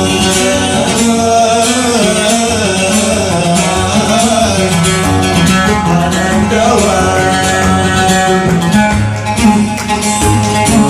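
Yemeni song music: a wavering melody line over steady low accompaniment, with no words made out.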